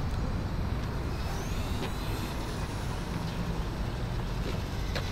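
Steady low rumble, with the faint whine of a LEGO Technic Batcycle's electric drive motor rising in pitch about a second in as the model speeds up.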